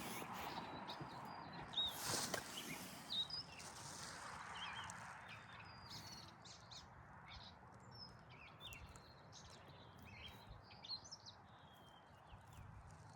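Small birds chirping in short, scattered calls over a steady outdoor hiss, with a few sharp knocks in the first few seconds.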